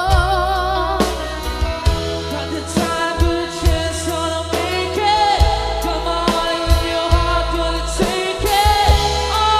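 A band playing a rock power ballad: a lead vocal with long notes held in vibrato over a steady bass line and regular drum hits.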